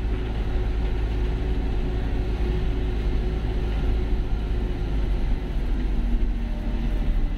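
Converted campervan bus driving: a steady low engine and road rumble with a faint constant hum.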